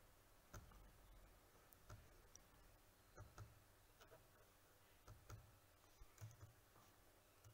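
Near silence: faint room tone with about ten small, short clicks scattered unevenly through it.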